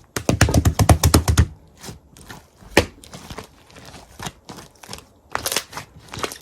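Sharp crunching clicks, a dense rapid flurry for the first second and a half, then scattered single crunches with a louder crack near the middle and another quick cluster near the end.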